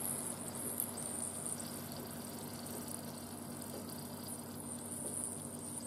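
Barbecue-sauced chicken thighs sizzling in the hot Ninja Foodi pot after broiling: a faint, steady crackle and hiss, with a low steady hum beneath.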